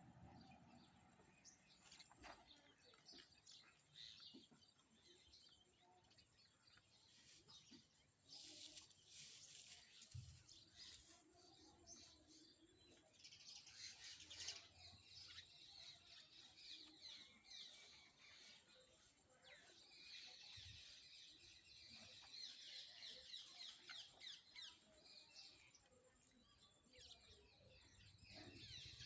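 Faint chirping of small birds, the calls coming in clusters, busiest about halfway through and again past the two-thirds mark.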